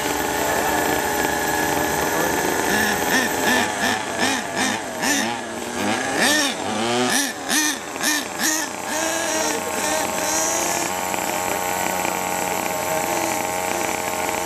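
Small two-stroke gas engine of a 1/5-scale RC monster truck running. From about three seconds in it revs up and down in quick, repeated throttle blips for several seconds, then holds a steadier high drone.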